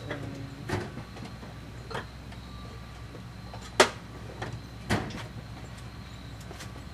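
A few separate sharp metallic clinks and knocks of hand tools and bolts being handled, the loudest about four seconds in, over a steady low hum.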